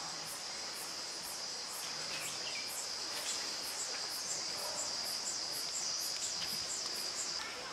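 Forest insects trilling steadily in one high band, with a pulse repeating about three times a second; the trill cuts off shortly before the end.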